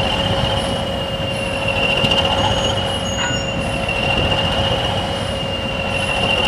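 Two BR-green heritage diesel locomotives, a Class 20 coupled to a Peak, run with their engines rumbling steadily. A steady high-pitched whistle sits over the rumble.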